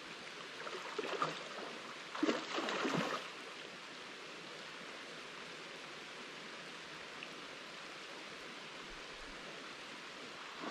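A shallow, rocky river flowing with a steady rush of water. A few brief, louder noises break in during the first three seconds.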